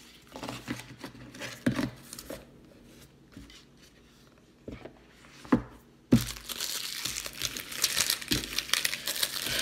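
Unboxing packaging being handled, with a few light knocks. About six seconds in it changes to steady crinkling and crumpling as the wrapping is scrunched up in the hands.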